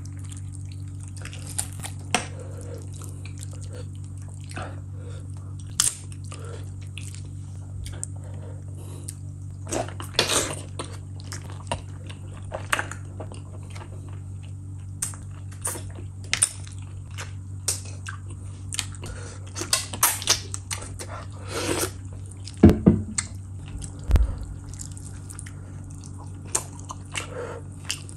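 Close-miked eating sounds: wet lip smacks, finger sucking and chewing as saucy curried fish and rice are eaten by hand, in many short, sharp clicks. A steady low hum runs underneath.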